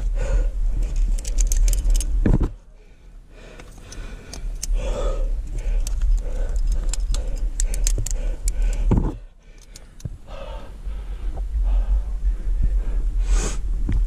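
Climbing gear jangling: carabiners and quickdraws on a climber's harness clinking against each other in scattered clusters as he moves on the rock, over a steady low rumble on the microphone that drops away briefly twice.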